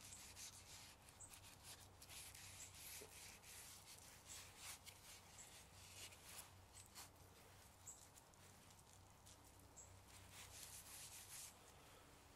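Faint rubbing of a cloth or pad over the surface of a turned Drake elm bowl held in the hands, in short, irregular scratchy strokes, over a low steady hum.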